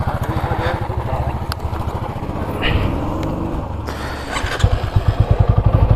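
Motorcycle engine running with an even low putter. It gets louder and stronger about four and a half seconds in as the rider opens the throttle and pulls away.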